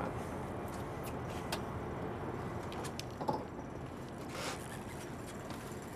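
Steady rumbling background noise on a boat on the river, with a few light clicks and a brief bit of voice about three seconds in.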